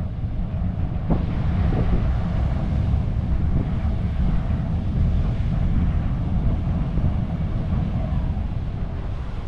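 Wind buffeting the microphone, with low surf washing onto the sand.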